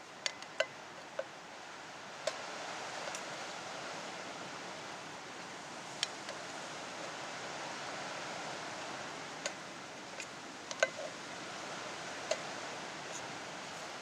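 Sharp metallic clicks and taps, some with a brief tinny ring, as a Leatherman multitool's can-opener blade punches and twists holes in a thin steel grapefruit can, about eight irregular strikes over a steady rushing of wind that picks up about two seconds in.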